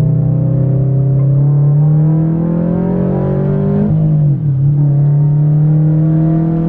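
Tuned Subaru BRZ engine pulling hard in second gear, its pitch rising steadily for about four seconds, then dropping suddenly as the driver shifts, and running at a steady pitch afterwards.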